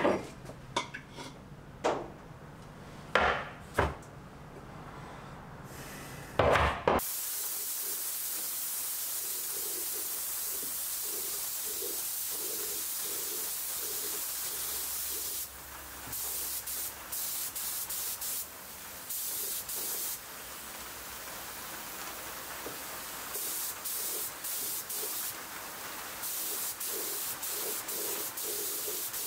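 A few knocks as metal paint tins are handled and set down, then a spray gun hissing as it sprays paint, steady for several seconds and then in short trigger bursts.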